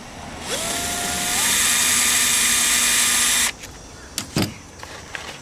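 Cordless Bosch drill spinning up with a rising whine and then running steadily with a loud grinding hiss for about three seconds against a masonry joint, then cutting off suddenly. A single sharp knock follows about a second later.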